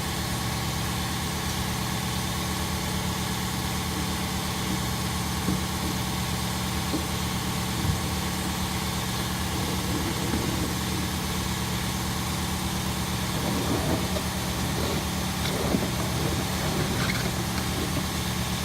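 A steady mechanical drone, like an engine idling nearby. From about thirteen seconds in come faint scrapes and clicks of hand tools working on a radiator hose clamp.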